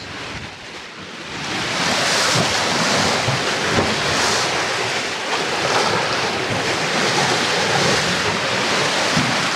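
Sea water rushing and foaming along a sailing catamaran's hull under way, with wind buffeting the microphone; the rush swells about a second and a half in and then holds steady.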